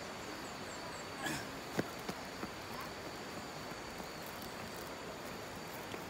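Insects calling with a steady high-pitched drone over a faint outdoor hiss, with a couple of faint knocks between one and two seconds in.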